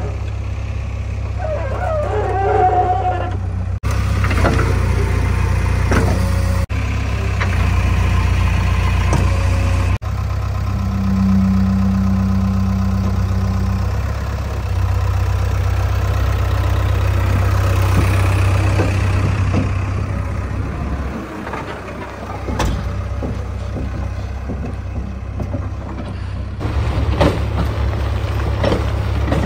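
JCB 3DX backhoe loader's diesel engine running steadily under load as the machine works its arms and drives, with abrupt breaks in the sound. A steady higher whine is held for about three seconds near the middle.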